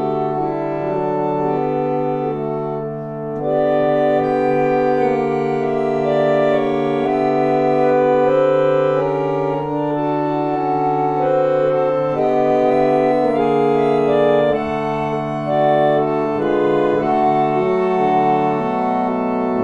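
Harmonium (reed organ) playing slow sustained chords over a long-held bass note, the sound swelling louder after about three seconds.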